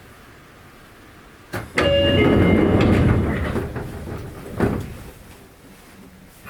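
Sotetsu 8000-series sliding passenger doors working with the door chime: a click, then a loud rattling slide with the chime's tones over its start, fading and ending in a thump about three seconds later. These are the unimproved door mechanisms, noted for their loud rattle.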